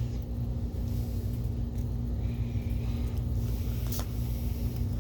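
Steady low background hum, with a single sharp click about four seconds in from a screwdriver working at the glued plastic housing of a USB transfer cable.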